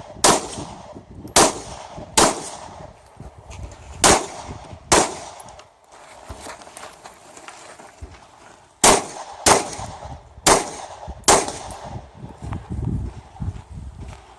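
Pistol shots fired through a practical pistol stage: nine sharp shots, several in pairs under a second apart, with a pause of about four seconds in the middle.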